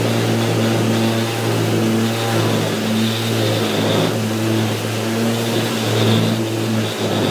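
Electric orbital sander running steadily against timber, a constant motor hum under a rasping sanding noise that swells and dips slightly as it is pressed and moved. It is sanding a glued-in timber splice flush and smooth.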